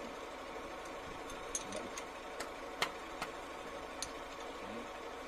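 Irregular light metallic clicks and taps, about six of them, from hand tools on the rocker-arm valve adjusters of a Hino 260 Ti six-cylinder diesel. The valve clearance is being set on cylinder 2 with the engine stopped, over a steady background hum.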